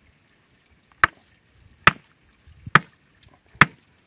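Small hammer striking a granite stone four times, evenly spaced a little under a second apart, each blow a sharp crack with a short ring. He is knocking it to split the stone along a chosen line.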